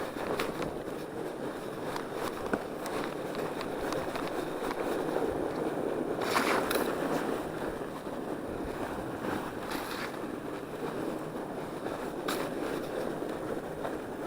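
Norco Bigfoot 1S fat bike riding downhill on packed, groomed snow: a steady rushing noise from the wide tyres rolling over the snow, with a few sharp clicks and knocks from the bike over ruts, the loudest about six seconds in.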